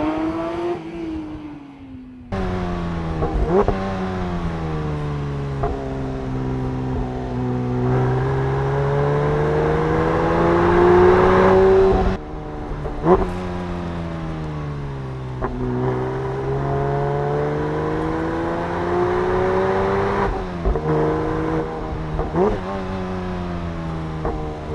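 Porsche 911 GT3 S/C's naturally aspirated 4.0-litre flat-six being driven, its pitch rising under throttle and sinking as it eases off, several times over. Sharp rev blips are heard about 3.5, 13 and 22 seconds in, and the sound cuts back abruptly just before 2 seconds and again about 12 seconds in.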